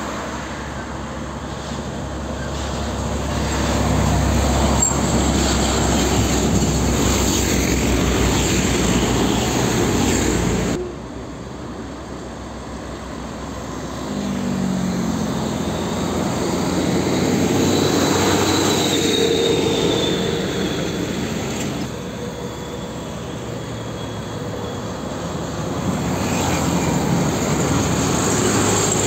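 Heavy diesel trucks driving past close by one after another, engine and tyre noise swelling as each nears and fading as it goes. The sound drops abruptly about eleven seconds in.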